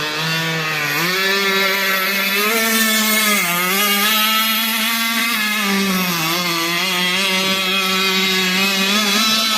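Motor of a radio-controlled catamaran boat running steadily at speed, its pitch rising about a second in and dipping briefly twice as the throttle changes.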